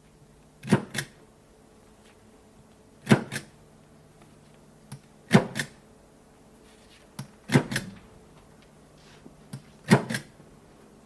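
Hand rubber stamp striking on a desk, two knocks at a time (ink pad, then paper) about every two seconds, five times in a steady rhythm, as telegram forms are stamped one after another.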